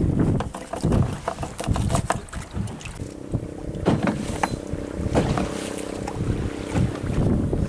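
Wind buffeting the microphone aboard a small boat at sea, with irregular knocks and water slaps. A steady engine hum comes in about three seconds in.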